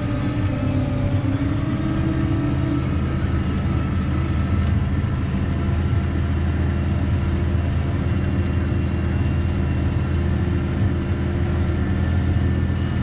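Tractor engine running steadily under ploughing load, heard from inside the cab; its note rises slightly over the first couple of seconds, then holds steady.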